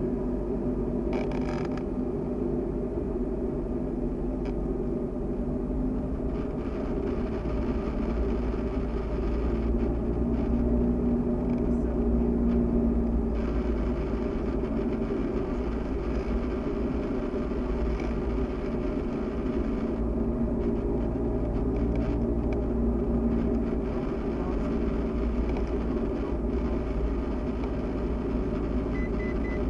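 Cessna 172SP's four-cylinder Lycoming engine and propeller running steadily, heard from inside the cabin during the approach. A short run of high beeps sounds near the end.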